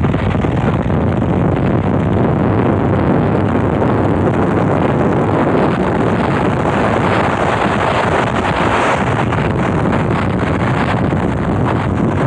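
Loud, steady rush of wind and road noise from a vehicle driving at speed, with wind buffeting the microphone.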